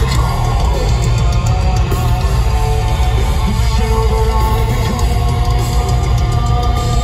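Heavy metal band playing live: guitars over bass and drums, loud and continuous.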